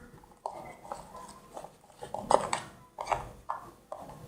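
Slime being kneaded and mixed by hand in a container, making a string of short, irregular wet squelches, the loudest a little past two seconds in.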